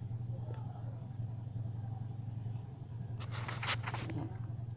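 Cassava peel being stripped from the root by hand: a short burst of scratchy tearing about three seconds in, over a steady low hum.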